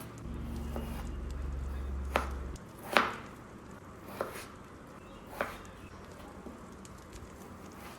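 A kitchen knife chopping vegetables on a cutting board: four separate knocks spread over a few seconds, the second the loudest. A low rumble runs through the first couple of seconds.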